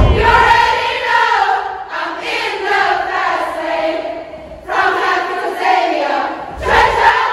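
A large group of young women singing a chant together in unison, in phrases with short breaks, with a low thud right at the start and another near the end.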